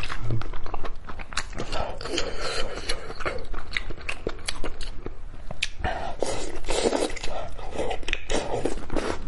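Close-miked eating: chewing and biting with wet mouth sounds and many sharp clicks and smacks.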